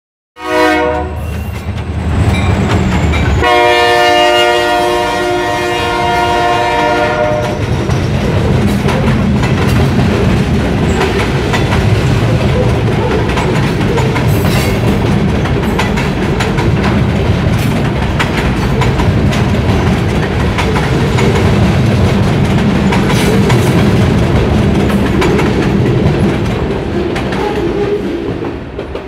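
Freight train passing close by. Its locomotive horn gives a short blast, then a longer one held for about four seconds, and the cars then roll past with a steady rumble and clickety-clack of wheels over rail joints, which falls away near the end.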